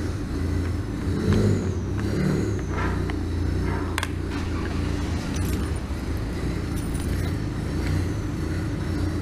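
Supercharged Ford Mustang's engine idling with a steady low rumble that sounds god-awful. A sharp click about four seconds in, with light metallic jingles.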